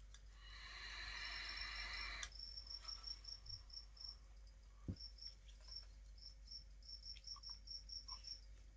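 Cricket chirping in short, high, evenly spaced chirps, about five a second, with a few brief pauses. A soft hiss from a puff on an e-cigarette lasts about the first two seconds.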